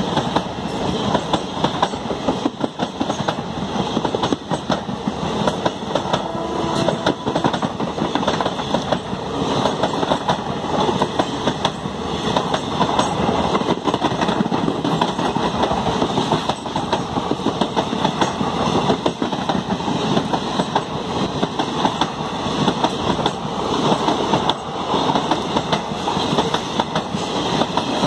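Passenger coaches of an express train rolling past close by: a loud, steady rumble of steel wheels on rail, broken by a rapid run of knocks as the wheels cross the rail joints.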